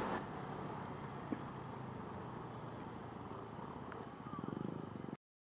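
Motorbike engine running on the move, with wind and road noise on the microphone; it gets louder briefly near the end, then the sound cuts off abruptly.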